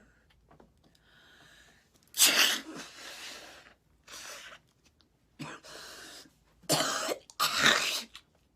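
A young woman coughing in a fit: about five harsh coughs with breaths between, the loudest about two seconds in and the last two close together near the end. She says she has a heavy cold with congestion and phlegm.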